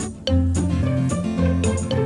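Background music: an upbeat children's tune with a bass line and a steady beat.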